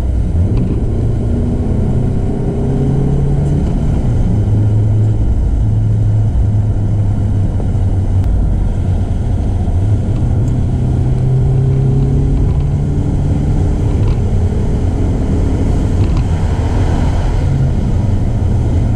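Mercedes W203's naturally aspirated engine running under way through a Supersprint middle and rear silencer exhaust. It is a steady low drone whose pitch slowly rises and falls with engine speed.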